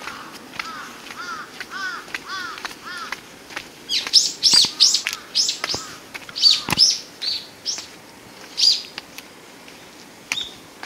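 Small songbirds chirping: a run of repeated, arching mid-pitched notes at first, then a burst of loud, rapid high chirps from about four to nine seconds in.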